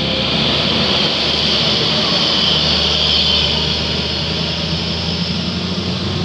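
A large bus passing close by on the road: engine hum and tyre hiss build to a peak in the middle, then slowly fade.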